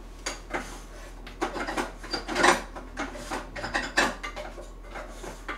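A rice scoop scraping and knocking against the inside of a rice pot while the last of the cooked rice is dug out. The scrapes and knocks come irregularly, the loudest about two and a half seconds in.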